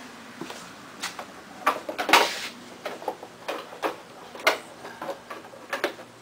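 Irregular clicks and light knocks, about a dozen in all, of parts and tools being handled on an ATV.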